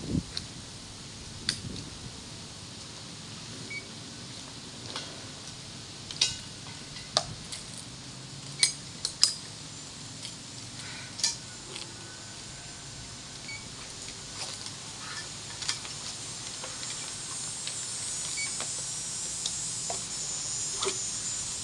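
Metal clips, buckles and straps of firefighter turnout gear and an SCBA harness clinking in scattered sharp clicks as the gear is put on. Near the end a steady hiss of compressed air starts and grows, as from the SCBA's air supply.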